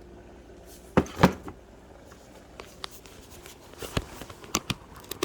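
A few light knocks and clicks of kitchen containers and utensils being handled: two close together about a second in, then a few more near the end.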